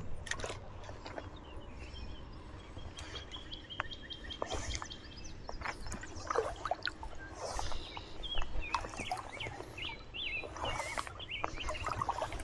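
Shallow river water splashing and sloshing in short bursts, with small birds chirping and a steady low rumble.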